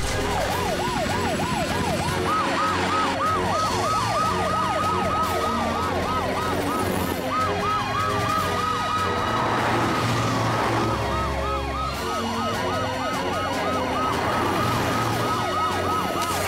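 Cartoon emergency-vehicle sirens wailing in fast, repeated up-and-down sweeps, two at different pitches overlapping, over background music. A low rumble swells briefly around the middle.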